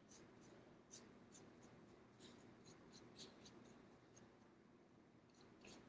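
Faint, irregular scratchy strokes of a small paintbrush dragging paint across a paper plate.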